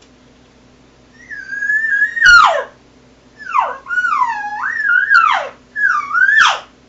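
Excited, estrus-sounding cow elk calls made on an elk call: four high-pitched, wavering mews starting about a second in. The first is long, and each one breaks sharply downward at the end.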